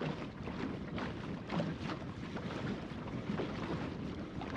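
Wind buffeting the microphone over water rushing and splashing irregularly along the hull of a plywood Goat Island Skiff under sail.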